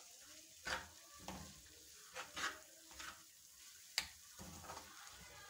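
Metal spoon stirring and scraping a crumbly halwa mixture in a metal frying pan, with a faint sizzle underneath. The scrapes come unevenly, about seven of them, with a sharp clink of spoon on pan about four seconds in.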